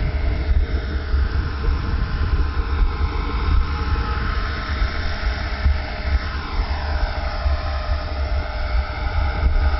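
HK-450 electric RC helicopter in flight, its motor and rotor whine holding steady and sliding up and down in pitch as it manoeuvres. A loud, fluctuating low rumble lies underneath.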